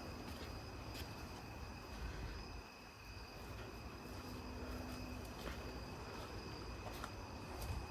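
Crickets trilling steadily in a high, even tone, with a few faint clicks and knocks over it.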